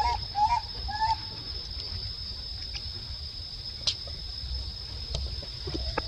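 Baby macaque giving three short coos, each rising and falling, in the first second or so, calling for its mother. Under it, insects make a steady high buzz, and there is one sharp click near four seconds in.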